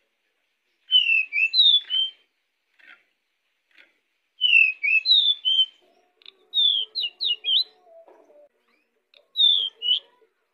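Male pied bushchat (decu) singing: four short phrases of quick, slurred whistled notes, each about a second long, with pauses of a second or two between them.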